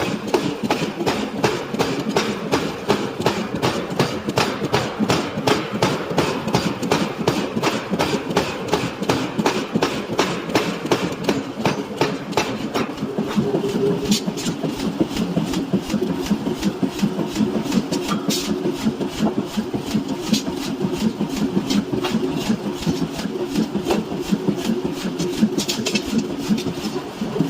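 Power hammer forging a steel knife blank: rapid, evenly spaced blows, several a second, over the steady drone of the machine running.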